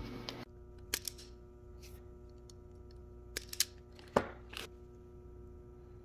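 A steady hum with a few sharp clicks and knocks, two close together about a second in, a pair about three and a half seconds in and the loudest knock just after four seconds. A hissing noise cuts off about half a second in.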